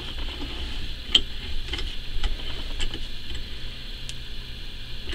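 Scattered light clicks and taps, about one every half second, as hands work a small cheap bench vise clamping a towel-wrapped plastic lighter, over a low steady hum.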